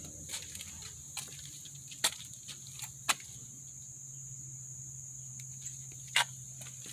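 Insects trilling in a steady high-pitched drone over a low hum, with a few sharp clicks about two, three and six seconds in.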